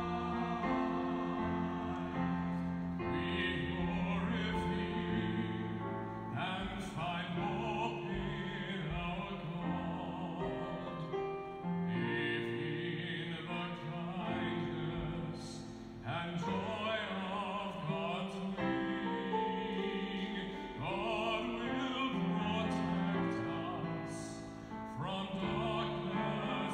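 A singer with a wavering vibrato sings a slow hymn over long held instrumental chords: music sung during Communion at Mass.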